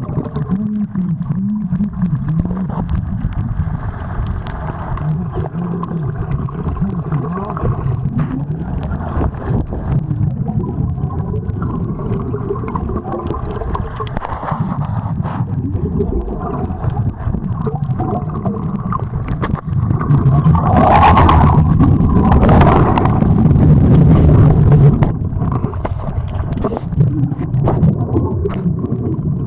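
Underwater noise picked up by a diver's camera: a steady muffled low rumble with gurgling, swelling into a louder rushing stretch for about five seconds past the middle.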